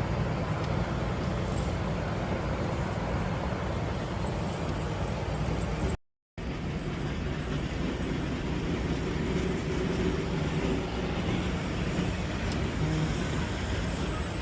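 Semi truck heard from the cab while driving: a steady rumble of diesel engine and road noise. It cuts out completely for a fraction of a second about six seconds in.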